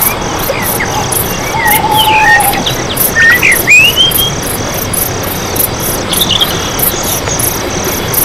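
Insects chirping in a steady, even rhythm of several pulses a second, with birds calling over them: short whistled notes that glide up and down through the first half, and a brief call again a little after six seconds in.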